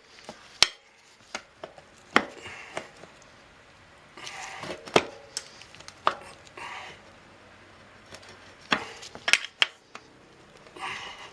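Tire irons working a motorcycle tire's bead off the rim: sharp metal clicks and knocks every second or so, with short scraping rubs between them.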